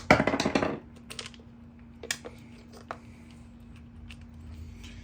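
Small hard parts and tools being handled on a workbench as an RC truck's servo is taken out: a loud clattering rattle in the first second, then a few scattered clicks. A steady low hum runs underneath.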